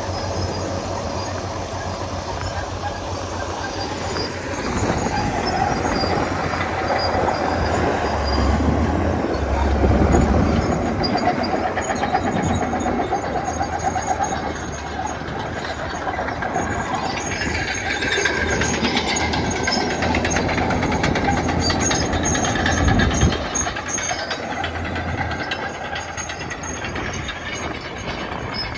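Komatsu D61EX crawler bulldozers running loud: diesel engine noise with the metallic clatter and squeal of steel tracks, swelling and easing as the machines work.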